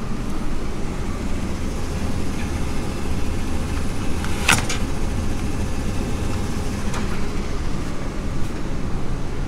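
A steady low rumble, with a sharp double click about halfway through from a hot-meal vending machine's cutlery dispenser as it releases the cutlery.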